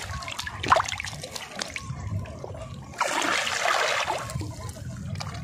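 Shallow water splashing and trickling, with a brief sharp sound about a second in and a louder rush of water lasting about a second past the middle.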